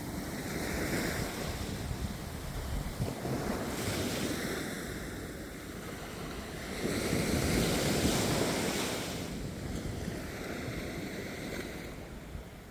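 Sea waves breaking and washing onto a beach, swelling and fading in surges, the largest about seven seconds in.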